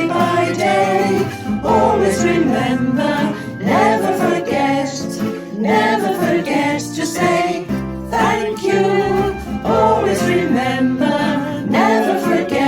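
Worship song music with singing voices, continuous and steady in level.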